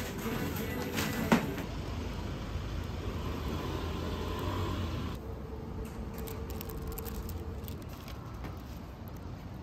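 Street ambience: a steady low rumble of traffic, with one sharp click a little over a second in and faint light ticks and rustles in the second half.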